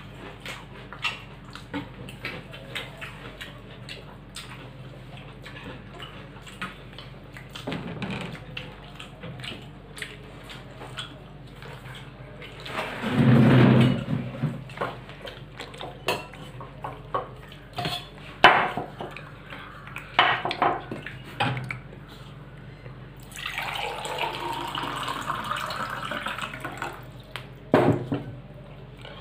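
Eating sounds at a meal of rice and curry: fingers mixing rice on steel plates, with frequent small clinks of steel plates and bowls and wet mouth sounds. A louder, longer noise comes about halfway through.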